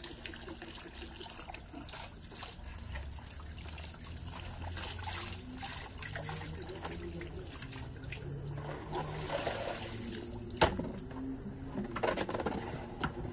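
Water from a hose trickling into a plastic basin while hands swish and rinse cabbage greens in it. A sharp knock about ten and a half seconds in, and a smaller one near the end.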